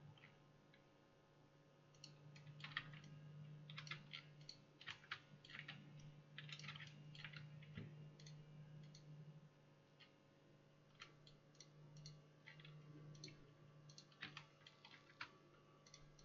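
Faint, irregular clicking of a computer mouse and keyboard, in scattered runs of quick clicks over a low, steady hum.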